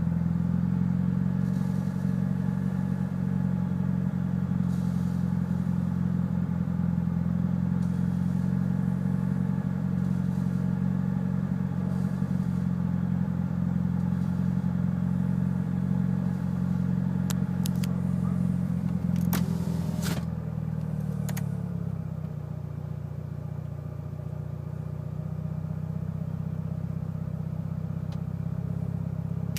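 Mitsubishi Lancer Evolution VIII's turbocharged 4G63 inline-four, fitted with aftermarket cams, running at a rough idle. About two-thirds through there are a few sharp clicks, then the idle sags and quietens before slowly climbing back. The owner cannot find the cause of the rough idle: the MAF and intake are clean.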